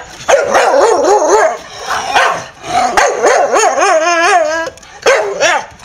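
Staffordshire Bull Terrier 'talking': drawn-out, wavering, warbling yowls that come in several runs, mixed with short barks. It is the sound of a dog overexcited at its owner's return.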